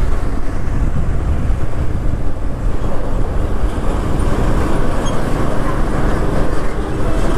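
Wind buffeting the microphone over the road noise of a moving TVS Apache RTR 160 motorcycle. It is a steady, deep rush with no clear engine note.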